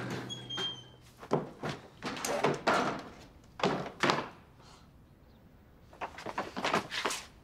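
Short knocks and scrapes of movement on tile paving, from a straw broom and a wheeled suitcase being brought in: a cluster of them about a second in, a lull, then another cluster near the end.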